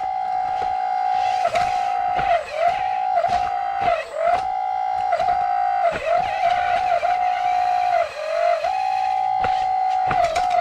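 Small electric motor of a radio-controlled construction model running at a steady high whine. Its pitch dips briefly again and again as load comes on, with clicks at the dips.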